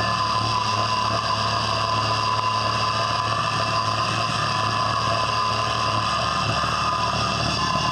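John Deere 2305 compact tractor's three-cylinder diesel engine running steadily as the tractor drives along, with a steady high whine over the engine note.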